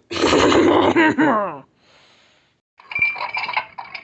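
A loud, drawn-out vocal cry whose pitch falls away near the end, followed about a second later by rattling and clattering.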